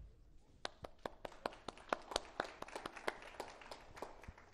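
Scattered audience applause, with the single claps distinct, dying away near the end.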